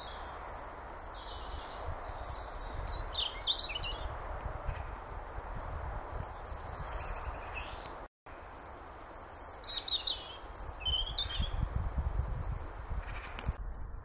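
European robin singing: high, thin warbling phrases with quick descending trills, in two bouts with a pause between. Under it runs a steady faint hiss and low rumble of woodland background noise.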